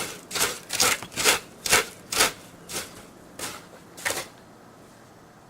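Icy, crusted snow crunching in a steady rhythm of about two strokes a second, spacing out a little and stopping about four seconds in.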